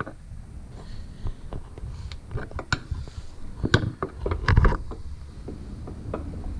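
Scattered metallic clicks and knocks of a wrench working the threaded adjuster bar of an aftermarket adjustable lower control arm, the adjuster not turning easily.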